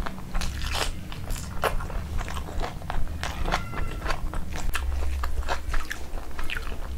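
Close-miked chewing of a mouthful of rice and butter chicken curry, with many short wet mouth clicks and smacks throughout. There are soft squelches from a hand mixing rice into the curry.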